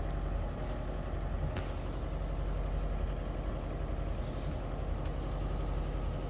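VW T25's water-cooled flat-four petrol engine idling steadily, heard from the front of the van.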